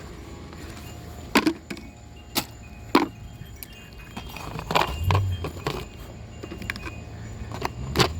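Half a dozen sharp, separate clinks and knocks of small hard objects being handled, spread irregularly over a steady low background rumble.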